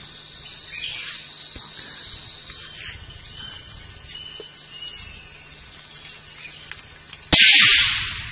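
Birds and insects chirping, with short high chirps and quick rising calls. About seven seconds in comes a single loud gunshot, whose sharp crack dies away over about a second.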